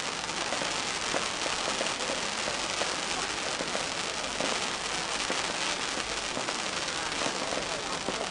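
Fireworks display going off without pause: a dense, continuous crackling and popping of many small bangs in quick succession.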